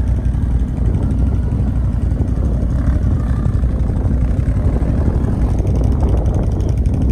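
ATV engine running, a steady low rumble.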